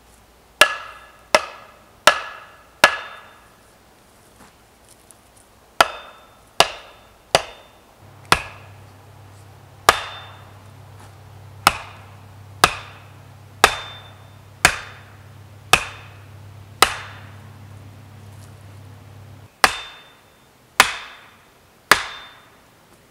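An axe chopping into wood: about eighteen sharp blows, each with a short ring, coming in runs of three or four with pauses between and a steadier run of about one a second in the middle.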